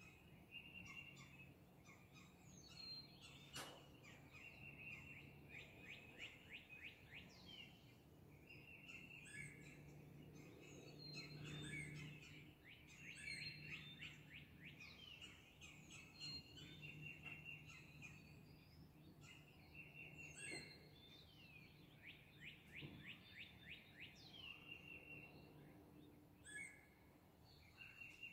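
Faint dawn chorus of songbirds: repeated rapid trills of quick down-slurred notes, over a low steady hum.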